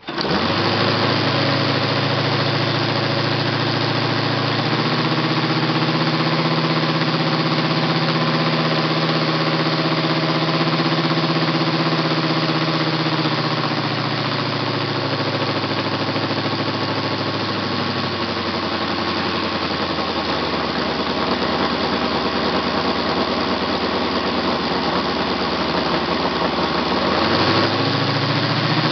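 ASP FS400 AR five-cylinder four-stroke radial model engine, hand-started cold, catching at once and running with its propeller. Its speed steps up about five seconds in, drops back in two steps later on, and picks up again near the end.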